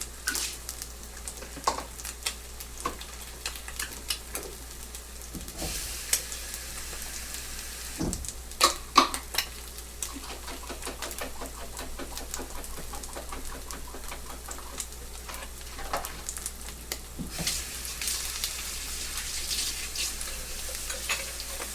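Steady sizzle of food frying in a pan, with scattered clinks and knocks of utensils. The loudest knocks come in a cluster about eight to nine seconds in.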